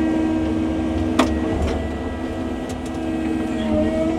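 Cat 309 mini excavator's diesel engine running steadily under hydraulic work, with one sharp crack about a second in and a few lighter clicks after it.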